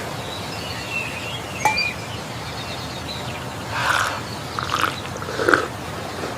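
Outdoor nature ambience: a steady background hiss with scattered bird chirps, then three short animal calls in the second half.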